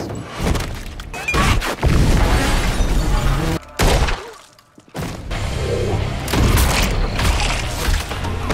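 Film action soundtrack: gunshots, heavy impacts and crashes mixed over score music. A little past halfway the sound drops almost to quiet for about a second, then the music carries on with more hits.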